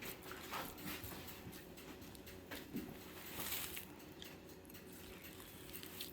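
A knife slicing through a raw boneless pork roll: faint, soft cutting sounds with a few light ticks and scrapes.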